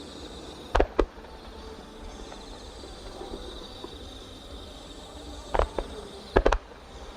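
Fireworks exploding at a display: two sharp bangs about a second in, then four more close together from about five and a half to six and a half seconds in, over a steady high-pitched background hiss.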